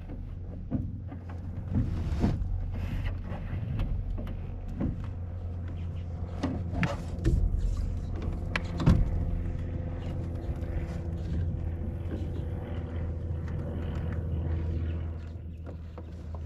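A small outboard motor, a 6 hp Evinrude, running steadily at idle, with scattered knocks and clatter from movement in the aluminium jon boat.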